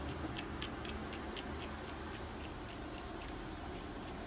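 Small flathead screwdriver working a tiny screw out of a plastic key fob: a run of light clicks, about three a second.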